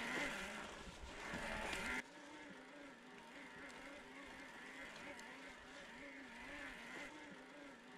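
A motor's steady hum whose pitch wavers slightly up and down over and over, stepping down in loudness about two seconds in.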